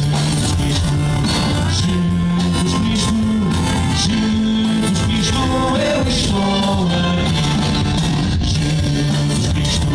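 A live band playing a rock-style song, with steady bass notes, drums and cymbals, and melody above.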